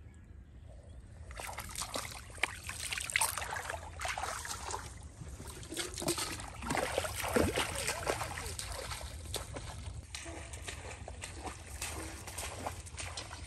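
Muddy water splashing and sloshing as it is scooped and poured with a metal bowl in a shallow pool, with many small splashes and knocks starting about a second in.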